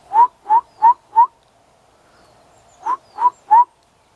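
An animal giving short, loud, rising calls: four in quick succession, then a pause of about a second and a half, then three more.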